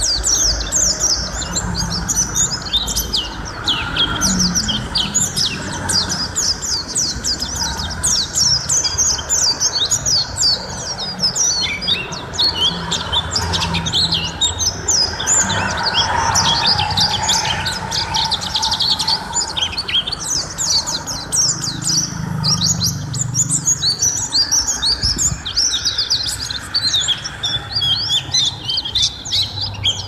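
White-eye (pleci) singing without letup: a rapid, high, twittering stream of chirps with hardly a pause.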